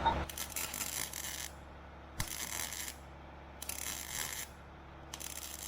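Four short bursts of MIG welding, each about a second long with brief pauses between, filling a hole in sheet metal with welds.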